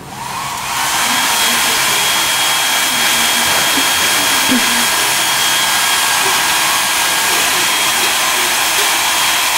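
Handheld hair dryer switched on and blowing hot air: a steady rush of air with a motor whine, building up over the first second and then holding level.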